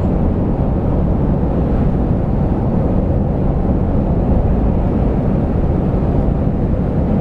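Steady drone of engine and road noise inside the cab of a 2007 Dodge Ram 3500 pickup with a turbo Cummins diesel, driving on the road.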